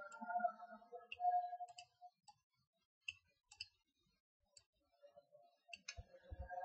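Faint computer mouse clicking, about ten sharp, irregularly spaced clicks over several seconds.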